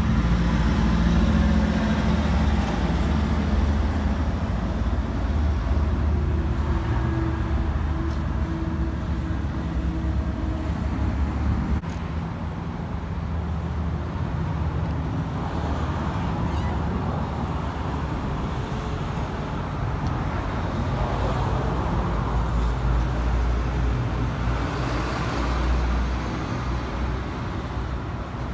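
Steady road-traffic noise with an engine's low hum running under it; the sound changes suddenly about twelve seconds in.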